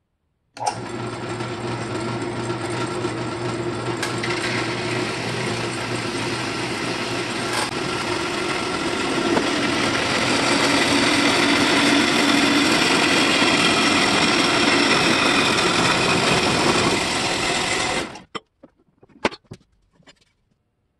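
Horizontal metal-cutting band saw starting up and cutting through a steel driveshaft tube. It runs steadily, grows louder about halfway through as the blade works deeper into the tube, then shuts off suddenly near the end, followed by a few light clicks.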